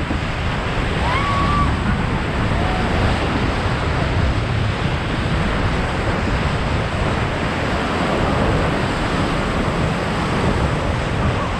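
Steady rush of water and heavy wind buffeting the microphone as a surf boat rides a wave, white water churning along its hull.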